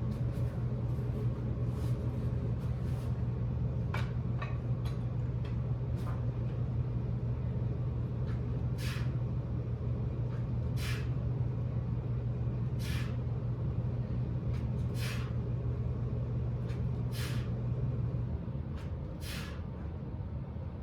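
A person breathing out in short, sharp hissing breaths about every two seconds, in time with dumbbell row repetitions. Under it runs a steady low machine hum that drops away near the end.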